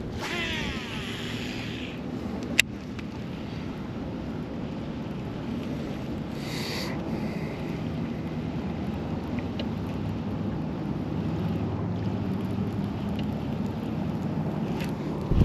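Steady wind noise on the microphone, with a short whirring, rasping sound in the first two seconds and a single sharp click about two and a half seconds in.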